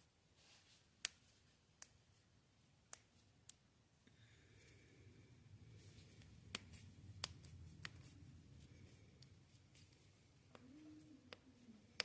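Joints being cracked: about seven sharp single pops at irregular intervals, over a faint low rumble that comes in about four seconds in.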